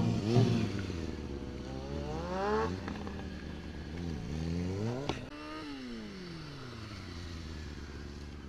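Sport motorcycle engine revving during stunt riding: the pitch rises sharply about two seconds in, then falls away steadily from about five seconds in as the bike slows, settling to a low steady run.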